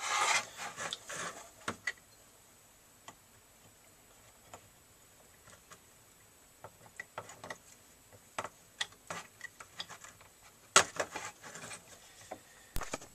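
Small clicks, taps and rustles from handling a small circuit board, its wires and a soldering iron while desoldering, with scattered sharp ticks and a louder cluster of clicks and rustling about eleven seconds in.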